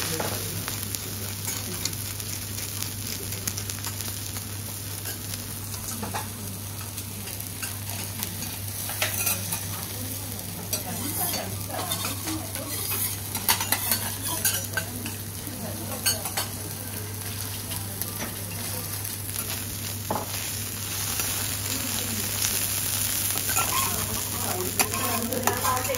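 Wagyu beef sizzling steadily on a teppanyaki iron griddle, with the sharp clicks and scrapes of metal spatulas on the hot plate scattered through, coming more often around the middle and near the end.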